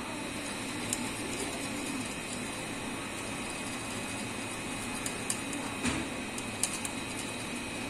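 A steady machine hum with a thin high whine, and a single light knock about six seconds in.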